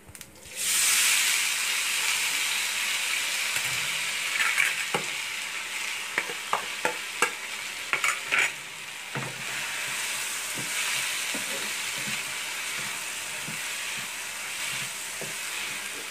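Sabudana (sago pearls) hitting hot oil in a frying pan and sizzling steadily, the sizzle starting sharply about half a second in. A spatula scrapes and taps against the pan as the pearls are stirred, most often in the middle stretch.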